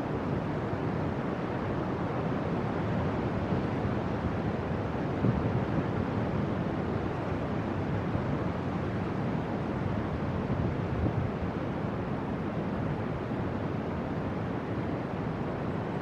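Steady wash of ocean surf mixed with wind on the microphone, with a few slightly louder gusts.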